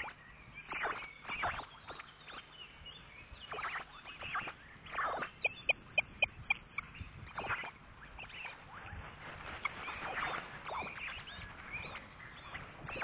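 Osprey calling at the nest: a run of short, sharp whistled calls, with a quick string of about six piping notes about six seconds in. The calls go up as its mate flies in and lands on the nest.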